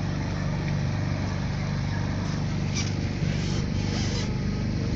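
Engine of a small backwater tourist boat running steadily under way, a low drone with water and wind hiss over it and a brief louder hiss about three seconds in.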